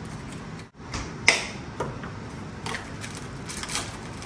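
Disposable cups and their plastic packaging being handled: a sharp click about a second in, then a few short crinkles and clicks as cups are pulled apart from a stack.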